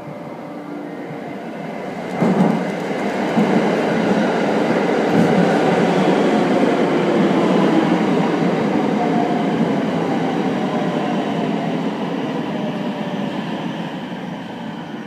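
JR West 521-series electric train, two coupled sets, running past along the platform. Its wheel and rail noise builds, jumps up sharply about two seconds in, holds as a dense rumble with a faint whine falling in pitch, then fades near the end as the train moves away.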